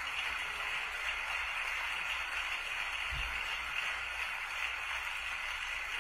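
Congregation applauding, heard as an even hiss of many claps, with one short low thump about three seconds in.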